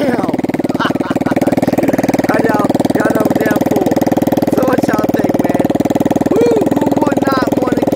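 Single-cylinder vertical-shaft small engine on a homemade boat motor, idling steadily through a homemade heat-wrapped exhaust muffler with a rapid, even firing beat.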